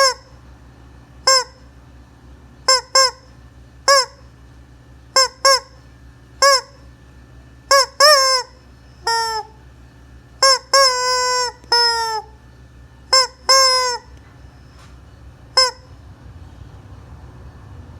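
A chicken giving a long series of short honking calls, some in quick pairs, with a few longer, drawn-out calls near the middle, then a pause near the end.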